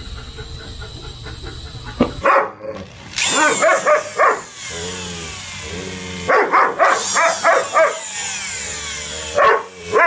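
A dog yowling and whining in drawn-out, howl-like calls that bend up and down in pitch. The calls come in bursts starting about two seconds in, again around six and a half seconds, and once more near the end, after a steady hiss at the start.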